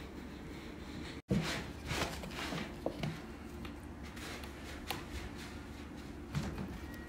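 Indoor room tone with a steady low hum, broken by a brief dropout about a second in, then scattered soft rustles and a few light knocks.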